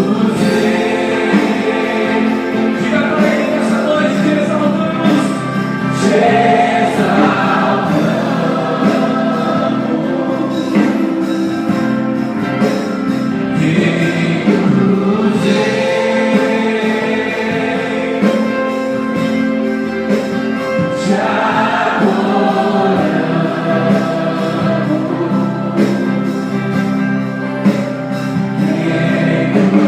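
Congregational gospel worship music: voices singing together over instrumental accompaniment, continuous and steady in level.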